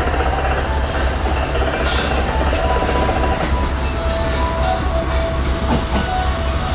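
Electric train passing at speed through a station, a loud, steady rush and rumble of wheels on the rails with a few thin steady tones above it.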